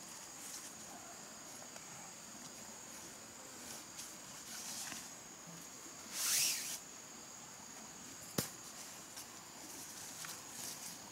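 A tarp rustling and swishing as it is handled, loudest about six seconds in, with a single sharp click a little after eight seconds, over a steady high-pitched insect drone.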